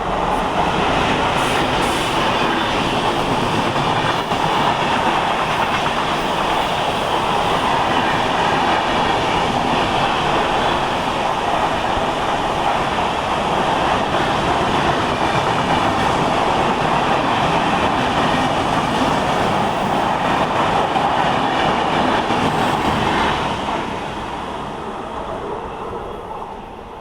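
Indian Railways passenger train passing through the station at speed: a steady rush of wheels on rail that dies away over the last few seconds.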